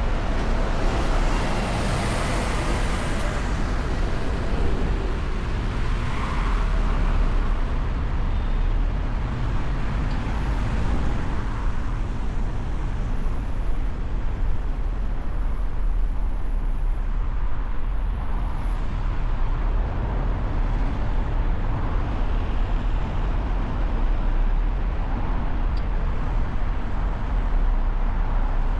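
City road traffic: a steady mix of engine and tyre noise from passing cars and scooters, with a deep, constant low rumble.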